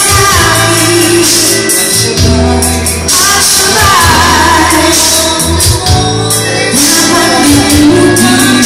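A man and a woman singing a duet through handheld microphones over amplified pop backing music with a steady beat and bass, heard through a bar's PA system.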